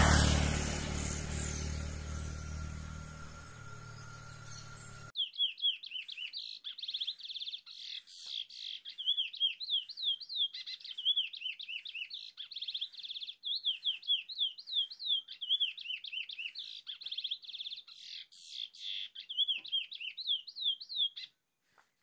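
Curió (chestnut-bellied seed-finch) singing a long, fast run of clear whistled notes that slur up and down, stopping abruptly near the end. For the first five seconds loud rough outdoor noise covers it; after that the song is heard alone.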